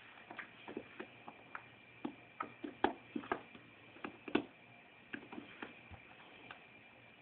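A kitten playing with a shoe and a small plastic letter magnet on carpet: irregular light taps and clicks, thinning out near the end.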